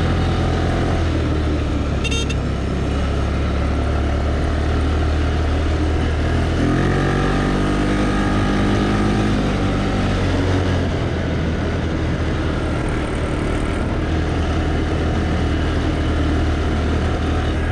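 Small single-cylinder 200cc ATV engine running under way, heard close up from the machine the camera rides on. Its note shifts in pitch for a few seconds in the middle as the throttle changes, then settles back to a steady drone.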